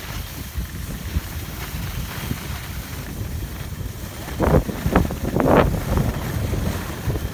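Wind buffeting the microphone on a ski slope: a steady low rumble, with a few louder, sharper rushes of noise about four and a half to six seconds in.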